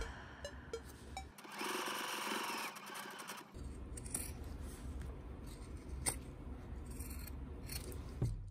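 Scissors cutting through heavy 10-count cotton canvas and its thick stitched seam allowance. A long continuous cut starts about a second in and lasts about two seconds, followed by a few separate sharp snips.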